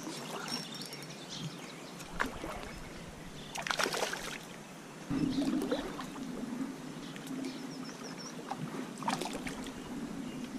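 A small hooked trout splashing at the water's surface as it is brought in on the line and lifted out of the shallows, with water slapping and handling noise, loudest a little before halfway. A steady low hum sets in about halfway through.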